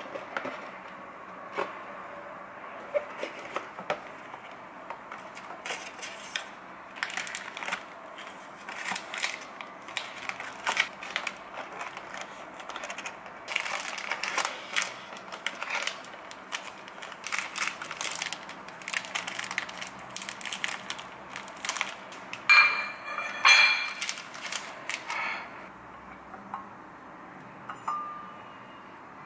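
Cardboard cookie box and plastic-wrapped cookies being handled: scattered crinkles, rustles and light taps, with two sharp ringing clinks about three-quarters of the way through.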